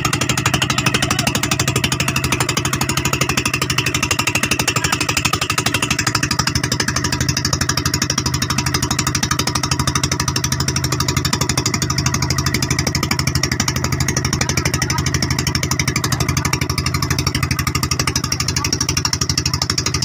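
Honda engine of an outrigger pumpboat running steadily under way, a loud, rapid, even beat.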